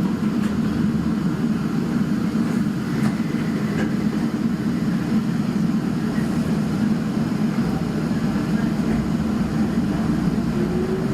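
Kobe Electric Railway train running, a steady rumble of wheels on the track, with a faint rising whine in the last few seconds.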